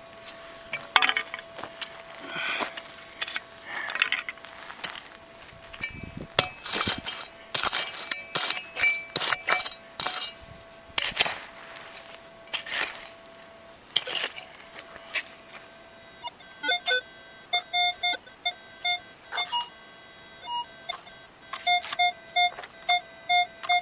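A digging pick striking and scraping through dry, rocky soil, then about two-thirds of the way in the Minelab Equinox 800 metal detector sounding bursts of short, clipped beeps as its coil passes over the hole: the target is still in the ground.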